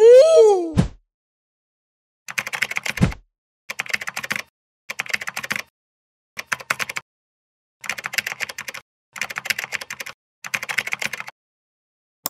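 A short pitched swoop that rises and then falls, followed by computer-keyboard typing sound effects in seven short bursts of rapid key clicks about a second and a half apart.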